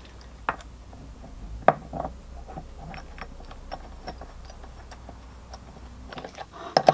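Light metal clicks and taps as an aluminium driveshaft adapter is handled and seated onto the transmission's output flange and its bolts. The sharpest click comes about a second and a half in, and a quick cluster of taps comes near the end.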